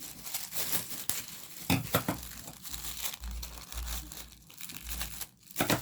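Plastic bag and paper crinkling as they are handled and taped down, with a few sharp rips of tape; the loudest strokes come about two seconds in and near the end.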